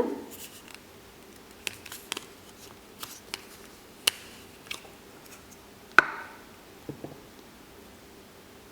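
Scattered light clicks and taps of plastic Play-Doh tubs and tools being handled, with one sharper click about six seconds in.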